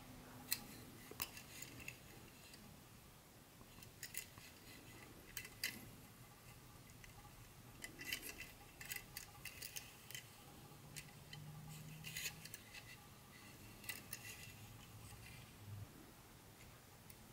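Faint, irregular light clicks and clinks of small hard parts being handled, as the plastic and metal pieces of an HO-scale model train set are unpacked or fitted together, with a low hum underneath.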